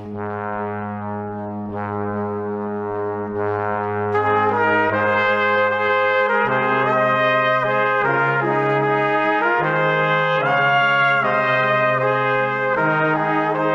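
Background music of long held chords that change every second or two, growing fuller and brighter about four seconds in.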